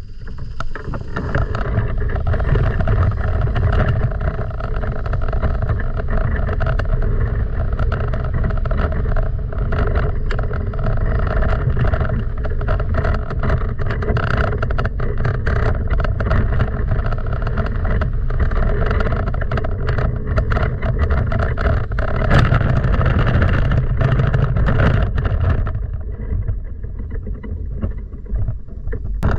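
Hang glider on its wheeled launch cart rolling across grass under scooter tow: a loud, steady rumble with wind noise and a droning tone underneath. It drops off near the end as the glider comes to a stop.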